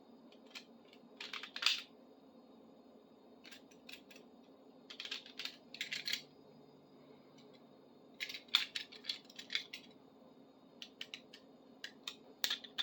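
Hand cleaning of the rusted grooves in a Phillips screwdriver tip: short scratchy scraping strokes in irregular bunches, with pauses between them, over a faint steady hum.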